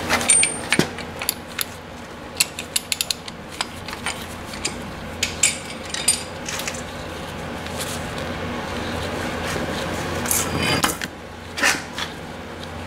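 Small metal clicks and ticks from the spindle nut and its retainer at a pickup truck's front wheel hub being worked loose by a gloved hand, thick at first and then sparser, with a couple of louder scraping rustles near the end.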